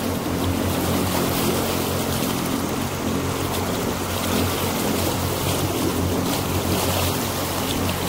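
A motorboat's engine running steadily underway, a constant low hum, under a steady rush of wind and water.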